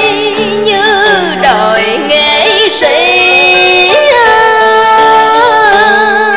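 A woman singing a Vietnamese tân cổ (cải lương) melody, holding long notes with a wide vibrato and sliding between them, over plucked string accompaniment.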